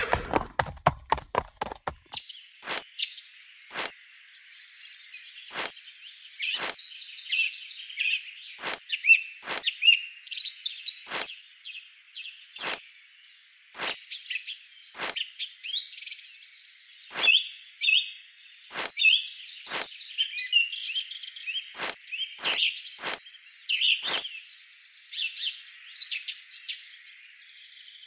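Small birds chirping and twittering continuously, with a sharp click roughly once a second and a quick run of clicks at the start.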